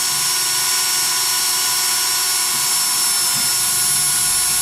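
Electric drill running at a steady full-speed whine as a titanium-coated high-speed steel bit bores through a piece of metal, thought to be aluminum.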